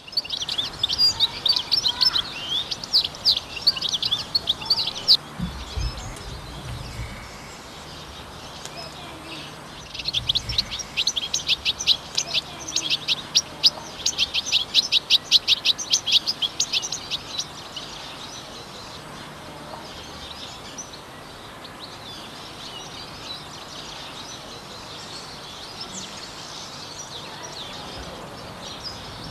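European goldfinch song: fast, liquid twittering in two long loud runs, the first in the opening five seconds and the second from about ten to seventeen seconds, with fainter twittering after.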